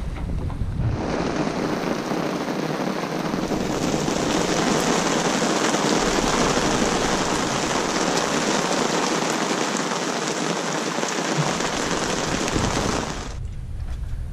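Heavy rain falling steadily, a dense even hiss that starts about a second in and cuts off suddenly near the end.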